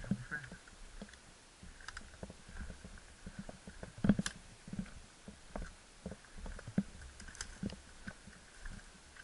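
Footsteps crunching on dry dirt and brush at a walking pace, with scattered knocks and rustles. The loudest knock comes about four seconds in.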